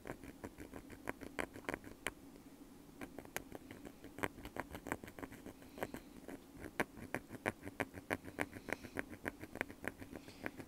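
Wooden ear pick scratching close to the microphone: a quick run of rough, dry scraping strokes, several a second, with a short lull about two seconds in.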